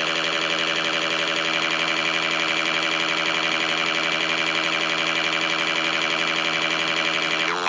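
A loud, steady, buzzy electronic tone with many overtones and a fast warble, like a siren-like sound effect. It holds for about seven and a half seconds and cuts off near the end.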